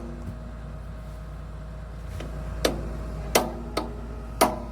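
Hammer striking steel on an excavator's H-link: four sharp blows in the second half, each with a brief metallic ring.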